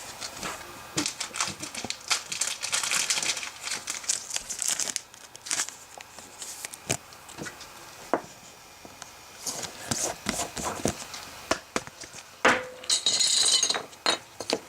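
Hands handling trading cards: irregular crinkling and rustling with light clicks, coming in bursts, with a denser rustle near the end.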